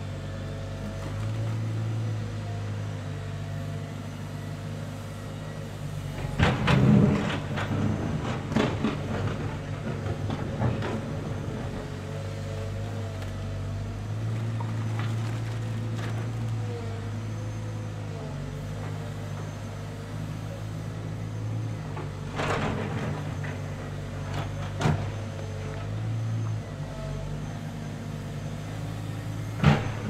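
Komatsu wheeled excavator's diesel engine running steadily while digging, its note swelling several times as the hydraulics take load. Sharp knocks and scrapes of the bucket working soil and rubble come through now and then, the loudest about seven seconds in.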